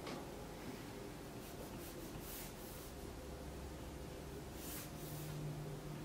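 Stylus drawing line strokes on an iPad's glass screen: faint soft scratches, a cluster about two seconds in and another near five seconds. A low steady hum comes in over the second half.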